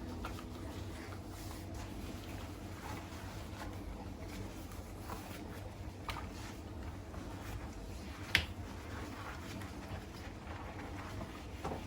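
Faint household handling sounds over a low steady hum: scattered light taps and clicks, with one sharper click a little after eight seconds in.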